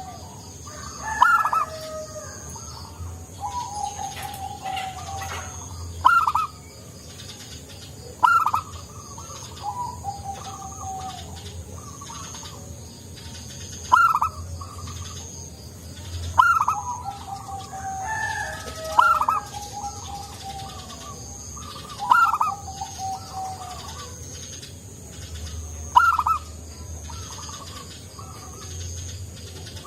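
Zebra dove (perkutut) cooing. The phrase is a sharp rising note followed by lower, drawn-out rolling notes, repeated every few seconds.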